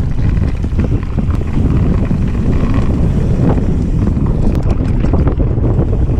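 Wind buffeting an action camera's microphone as a mountain bike rolls fast down a dirt and gravel trail, with a constant low rumble and many small clicks and rattles from the tyres and bike over stones.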